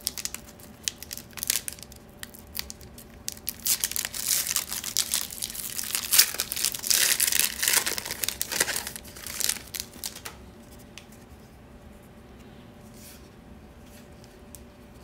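Foil wrapper of a trading-card pack being torn open and crinkled by hand, a dense crackling that stops about two-thirds of the way through.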